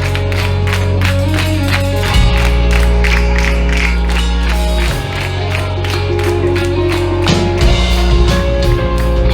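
A live hardcore/emo band playing loud rock music, with bass and guitars under a steady drum beat. The bass notes shift to a new note every two to three seconds.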